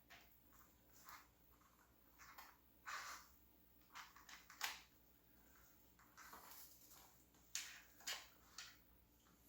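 Faint handling noises: short, scattered rubbing and scraping sounds of a bicycle inner tube and tyre being worked onto a wheel by hand, with a slightly louder scrape about four and a half seconds in and a cluster of them near the end.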